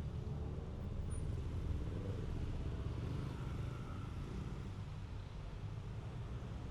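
Busy city road traffic: a steady low rumble of passing cars and other vehicles.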